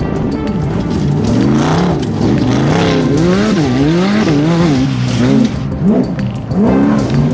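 Desert-racing trophy truck's engine revving up and down again and again, its pitch rising and falling about once a second, with a couple of brief drops in level near the end.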